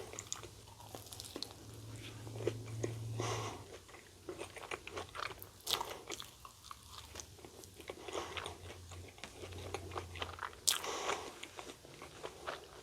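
Close-up eating sounds of a person biting and chewing a crispy Korean corn dog: scattered crunches and wet mouth clicks, one sharper crunch near the end.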